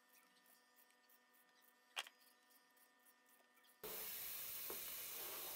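Near quiet with a single sharp click about two seconds in, then a steady rush of running water from a kitchen tap that starts suddenly about two-thirds of the way through.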